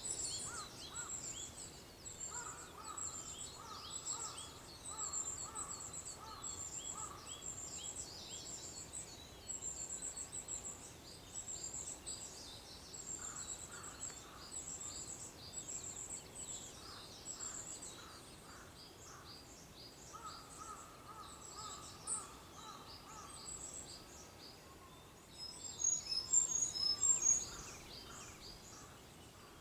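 Wild songbirds chirping and singing outdoors at dawn: a steady stream of quick, high chirps, twice broken by a run of evenly repeated lower notes, with a louder close burst of chirping near the end.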